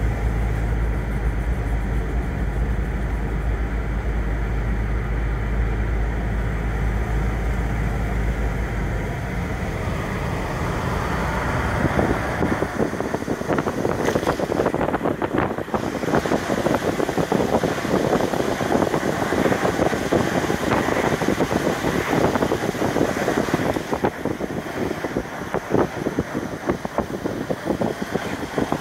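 A car's cabin noise while driving: a steady low road rumble for about the first ten seconds, then louder gusty wind rush with buffeting on the microphone for the rest.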